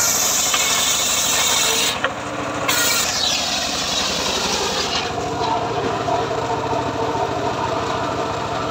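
Homemade portable circular-saw sawmill (gergaji srekel) running steadily, its engine and blade turning, with a short break in the sound about two seconds in.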